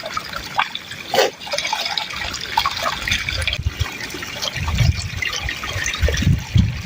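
Water trickling and dripping with small splashes, and low rumbling thuds from about three seconds in.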